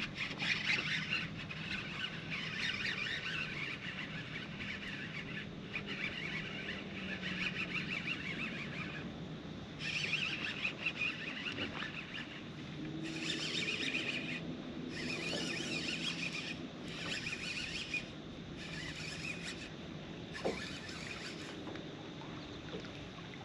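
Fishing reel being cranked to retrieve a lure. The winding comes in a run of short bursts, about a second each with brief pauses, in the second half. A low steady hum sits underneath in the first half.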